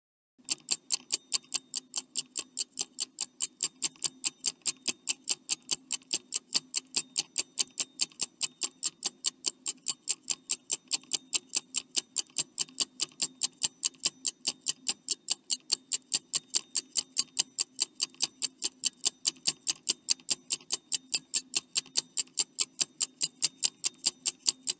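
Clock-ticking sound effect for a countdown timer: fast, perfectly even ticks, starting about half a second in.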